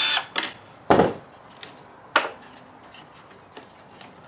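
A power driver's whine cutting off right at the start, then a few sharp knocks and clacks of the side-mirror assembly being handled and pried at, the loudest about a second in.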